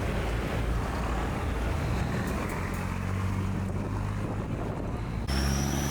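River boat's engine running with a steady low drone. The sound changes abruptly about five seconds in to a similar drone with a faint high whine over it.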